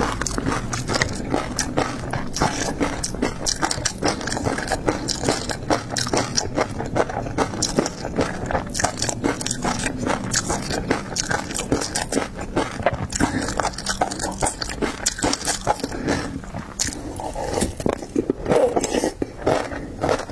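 Close-miked eating of seafood: rapid, continuous crunching, biting and wet chewing.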